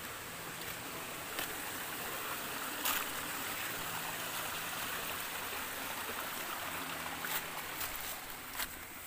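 Small hill stream trickling and splashing over mossy boulders, a steady rushing that swells a little in the middle as it is passed, with a few sharp clicks over it.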